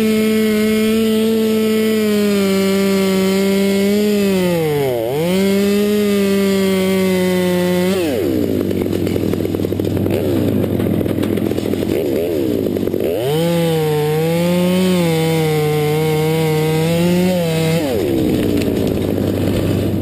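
Two-stroke top-handle chainsaw, a Stihl 200T, held at high revs, with a brief dip about five seconds in. It drops back to a rougher, unpitched sound for several seconds, then revs up again and drops off near the end, as it would while cutting out the top of a spruce.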